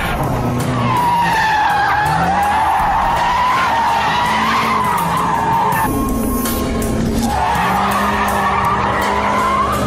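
BMW M5 (F10) tyres squealing in long, wavering screeches while the car drifts on full power, breaking off for a second or so after about six seconds and then starting again. The car's twin-turbo V8 engine runs underneath.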